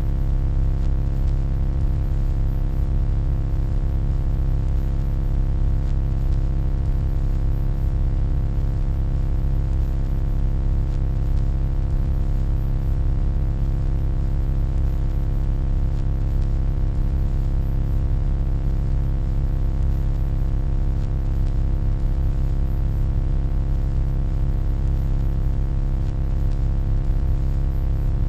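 Steady electronic hum, deep and unchanging, with a cluster of fainter steady tones layered above it.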